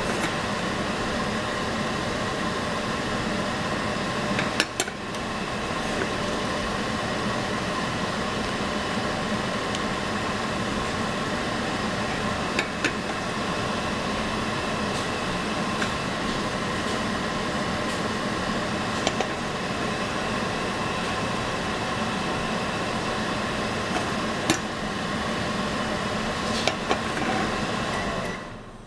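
Butter melting in a stainless steel saucepan over a gas burner, with a few sharp pops as it spits, over a steady humming drone that stops near the end.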